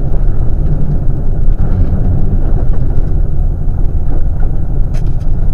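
Rally car driving at speed, heard from a camera mounted on the car: a loud, steady rumble of engine, wind and road noise, with a sharp click about five seconds in.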